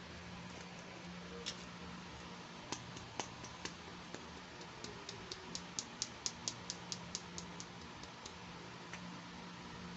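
Small, sharp plastic clicks and taps from handling miniature toy pieces: a few scattered clicks, then a quick run of about three or four a second through the middle, over a faint steady hiss and hum.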